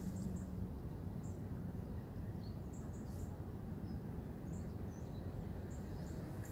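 Outdoor ambience: a steady low rumble of wind with small birds giving short, high chirps scattered throughout.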